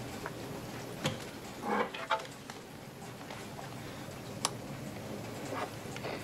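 Handling noises from an electric guitar and a small amplifier: a soft knock about a second in, a brief cluster of knocks with a faint ring of strings just before two seconds, then a single sharp click as the amplifier is switched on, over a steady low hum.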